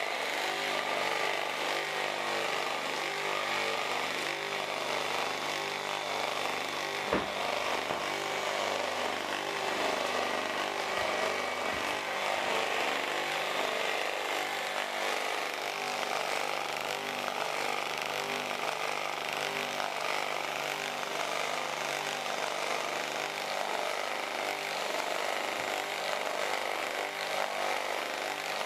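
Electric motor and the generator coupled to its shaft running steadily on mains power: a constant whirring hum. One brief knock about seven seconds in.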